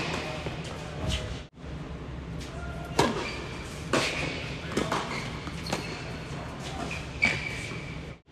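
Tennis ball struck by rackets in a quick doubles rally, about six sharp hits spaced roughly a second apart, echoing in an indoor tennis hall.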